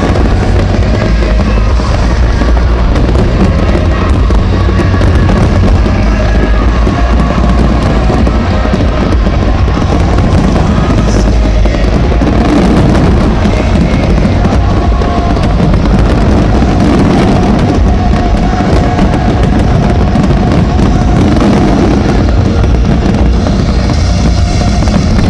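Aerial fireworks bursting and crackling densely, over loud music played for the show.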